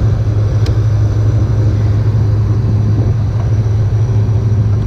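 John Deere 9770 combine running with a steady low drone, and a faint click about two-thirds of a second in.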